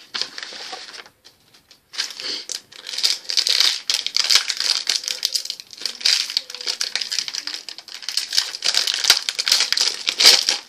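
Plastic hockey-card pack wrapper crinkling and crackling as it is handled. There is a brief burst at the start, a short lull, then dense crackling from about two seconds in.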